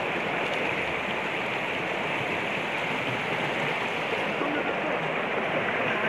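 Shallow stream running fast over rocks, a steady rushing of water.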